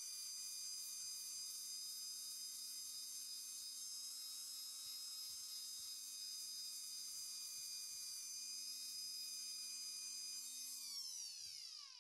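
Electric rotary tool spinning a green rubber polishing wheel against a stainless steel watch bracelet, a steady high whine. About eleven seconds in it is switched off, and the whine drops in pitch and fades as the wheel spins down.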